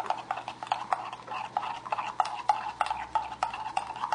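A metal teaspoon stirring Turkish coffee in a white enamel cezve, clinking against the pot's sides about four or five times a second with a short ring on each clink.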